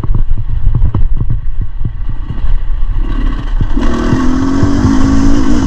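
Beta 300 RR two-stroke enduro bike riding rough trail: a low engine rumble broken by frequent knocks and rattles, then about four seconds in the engine note picks up and holds steady and strong.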